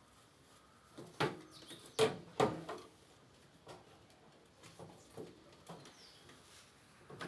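A series of sharp knocks and clicks from hard objects being handled. The loudest strikes come about one to three seconds in, and fainter ones follow.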